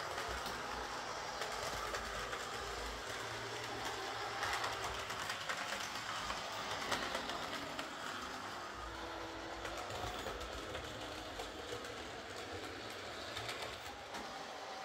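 Hornby Class 56 OO gauge model diesel locomotive running along the layout track, a steady motor hum with light clicking from the wheels on the rails. It is running again after repair to a dead motor.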